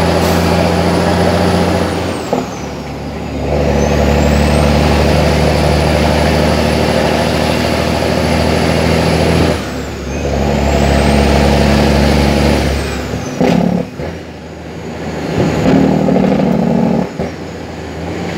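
International 9900i truck engine pulling under load, heard from inside the cab. The engine note drops away for about a second at each of several gear changes, about 2, 10 and 13 seconds in, then picks up again. A high whine falls and rises again with each shift.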